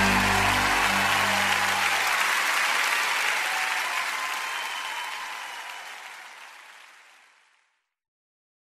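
Audience applause after a live song, with the last held notes of the music dying away in the first two seconds; the applause then fades out gradually to silence about seven and a half seconds in.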